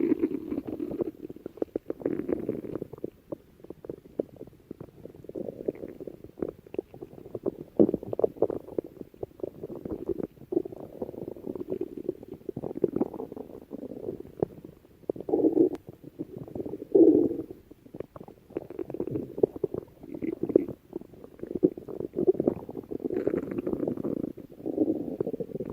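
A person's stomach growling: low rumbles that swell and fade every second or two, full of fine crackling pops, with two louder swells a little past the middle.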